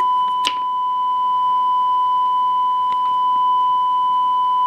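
Steady 1 kHz test tone, the kind of reference tone a Sony Betacam SP camera puts out with its colour bars, held unbroken. A sharp click sounds about half a second in and a softer one around three seconds.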